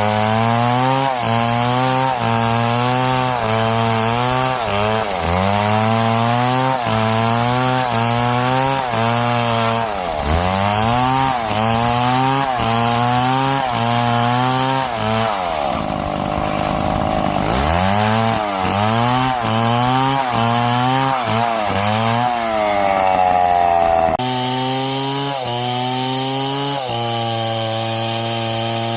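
Chainsaw engine running under load while cutting wood, its pitch dipping and recovering again and again. About halfway through it bogs down low for a second or so before revving back up, and a little past three-quarters of the way the sound changes abruptly to another steady cut.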